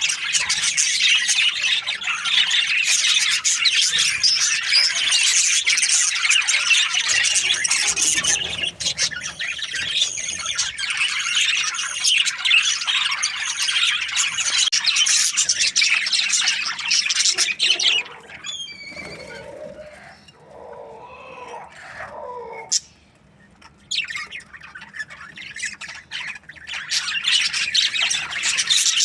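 A flock of budgerigars chattering and squawking in a dense, busy stream of calls. The chatter drops away for a few seconds about two-thirds of the way through, then picks up again.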